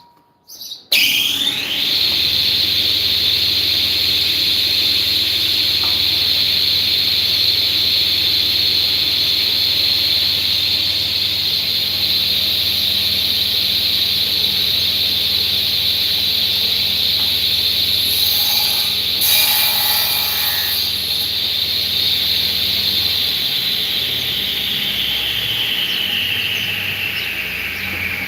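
An electric woodworking machine starts up. Its whine rises quickly to a steady high pitch over a low motor hum and runs steadily, with a brief rougher patch around 19 seconds in. At about 23 seconds it is switched off: the hum stops and the whine slowly falls as the machine coasts down.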